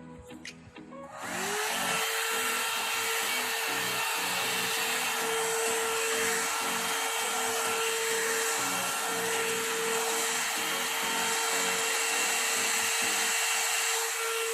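One-step hair dryer and styler (hot air brush) switched on about a second in, then running steadily: a loud rush of blown air with a steady motor hum.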